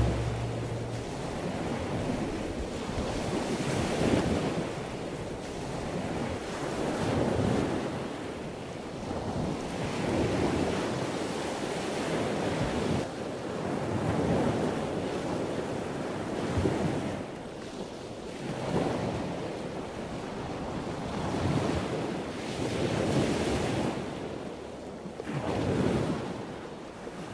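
Ocean surf: waves washing in, swelling and falling away every two to three seconds.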